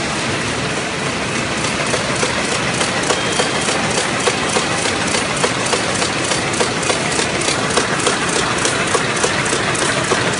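Signature Elite 110 folder-gluer running, set up for 4- and 6-corner boxes: a steady mechanical rattle and whir with a regular clicking about four times a second.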